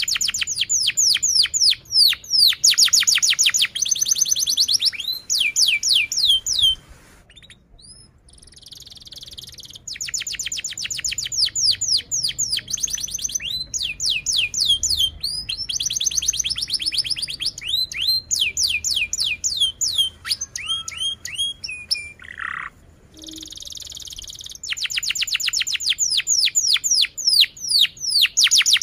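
Domestic canary singing in fast trills and rolls of quick high notes mixed with buzzy passages. The song breaks off about seven seconds in, starts again a few seconds later, and pauses briefly once more near the end.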